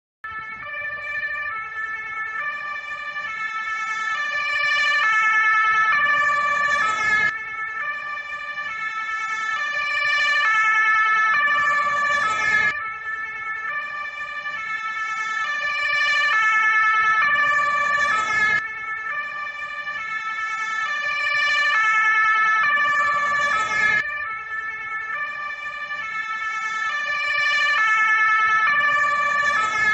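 Danish fire engine's two-tone siren, alternating steadily between a high and a low note. It swells louder over several seconds and then drops back suddenly, about every five and a half seconds.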